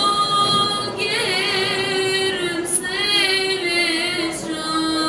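Children's choir singing, girls' voices to the fore, with long held notes that waver in pitch.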